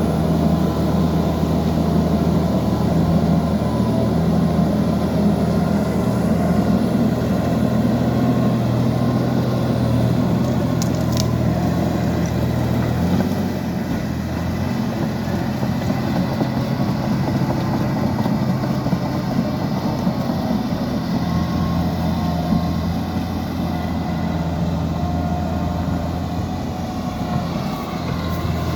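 Liebherr PR 754 crawler dozer's diesel engine running steadily under work, with a slight dip in loudness about halfway through and again near the end. A single brief click sounds about a third of the way in.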